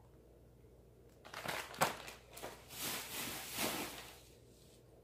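Rustling and knocking of cardboard boxes and packaging being handled and set down, starting a little over a second in, with a sharp knock near the two-second mark.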